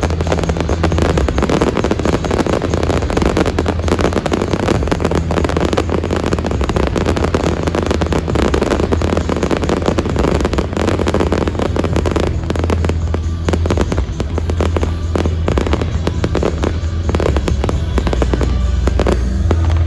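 Fireworks exploding in a dense, rapid barrage of bangs and crackles over a show soundtrack played through loudspeakers.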